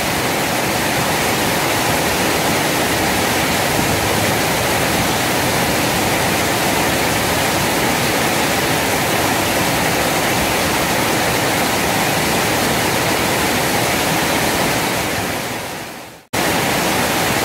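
Steady rush of water pouring over a small weir into a fast-flowing river. It fades out near the end and cuts off briefly twice.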